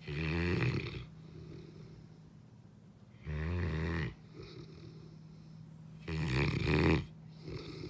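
Saint Bernard dog snoring in deep sleep: three loud snores about three seconds apart, each just under a second long, with softer breaths in between.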